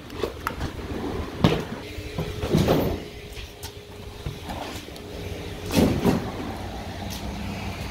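Knocks, clunks and scrapes of car interior parts being handled and pulled out, the loudest about one and a half seconds in, near three seconds and near six seconds, over a steady low hum.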